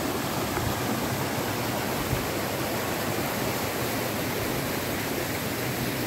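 Hot-spring water rushing steadily over rocks, a continuous loud rush of flowing water.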